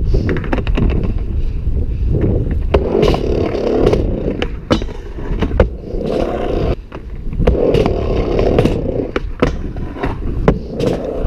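Skateboard wheels rolling back and forth on a ramp: a steady rumble that swells with each pass, broken by many sharp clacks of the board and trucks striking the ramp and coping.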